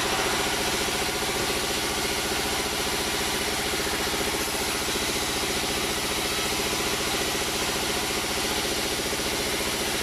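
Engine-driven band sawmill running steadily while a balsa log is fed through its vertical blade: a rapid, even engine pulse under a constant hiss of cutting.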